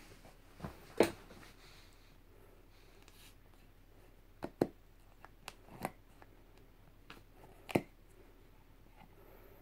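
Handling noise from sneakers and a small hand tool: a handful of short, sharp clicks and knocks, the loudest about a second in and again near the end.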